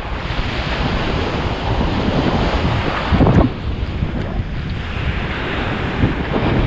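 Ocean surf washing up a sandy beach, with wind buffeting the microphone; a louder rush comes a little after three seconds in.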